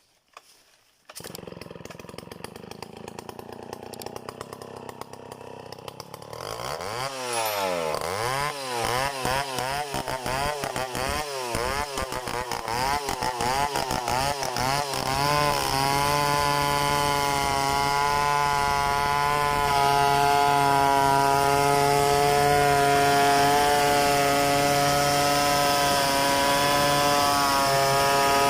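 Large two-stroke Stihl 070 chainsaw engine. It comes in about a second in and runs at a low idle. From about a quarter of the way through, the throttle is blipped up and down several times. For the second half it is held at steady high revs.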